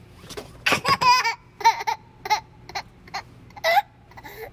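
A toddler giggling in a string of short, high-pitched bursts of laughter.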